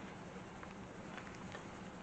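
Faint, steady hum of Italian honeybees around an open hive, with a few small light clicks from frame handling.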